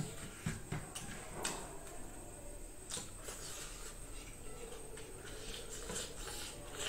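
Quiet hand-eating sounds: fingers mixing and scooping rice on a steel plate, giving scattered soft clicks and taps.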